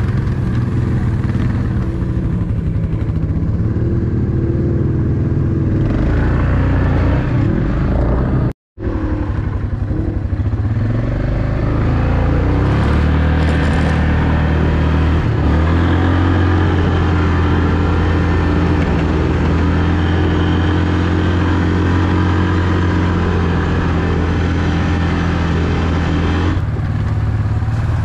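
Off-road vehicle engine running steadily on the trail, a low drone that holds its pitch through most of the stretch. The sound cuts out completely for a split second about nine seconds in.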